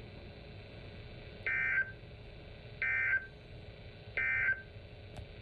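Emergency Alert System end-of-message tones: three short buzzing data bursts of SAME code, about a second and a half apart, that mark the end of the alert broadcast.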